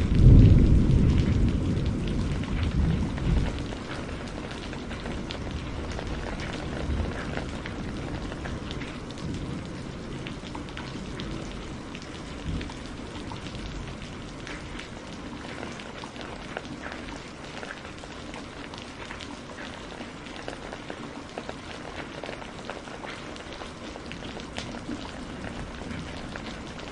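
Steady rain with the patter of drops, a low roll of thunder at the start dying away over the first few seconds, and faint distant rumbles later on.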